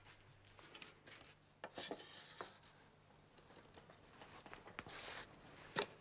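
Faint handling sounds of a thin bent wooden guitar side being fitted into a wooden mould: a few light clicks and knocks with soft rubbing of wood on wood, and a brief scrape about five seconds in.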